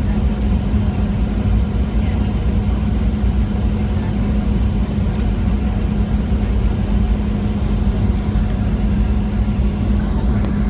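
Steady jet airliner cabin noise inside a Southwest Airlines Boeing 737 on its descent: a low rumble of engines and rushing air with a constant hum.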